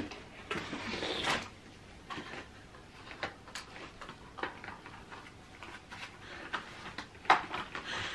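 Rustling, tapping and clicking of a small cardboard gift box being picked out and handled, with one sharper knock a little after seven seconds in.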